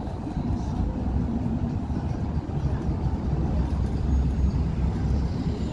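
Steady low rumble of city road traffic heard across the water.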